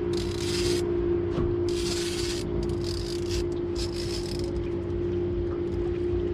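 Boat motor running at a steady hum, with four short bursts of hiss over it in the first few seconds.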